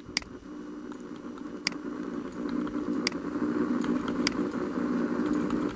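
Computer keyboard keys clicking, one press every half second to a second: the Page Down key stepping the video forward frame by frame. Under them runs a steady low hum that grows a little louder.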